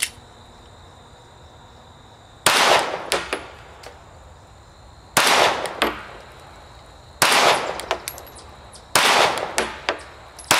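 Glock 43 9mm subcompact pistol fired slowly, one shot at a time: four sharp shots about two seconds apart and another right at the end, each with a short ringing tail and a few quick clinks after it.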